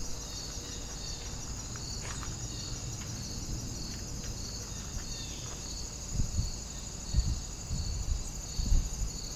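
Crickets and other night insects chirring in a steady chorus: a continuous high trill with a pulsing chirp about three times a second. Low bumps and rumbles come and go in the second half.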